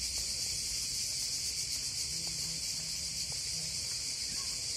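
A chorus of cicadas buzzing steadily, a dense high-pitched hiss with no pauses.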